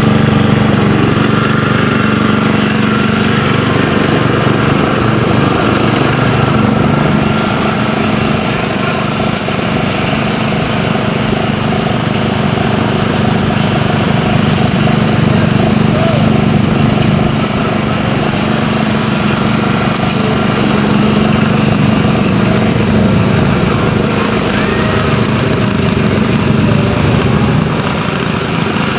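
Craftsman riding lawn mower engine running steadily at a constant speed.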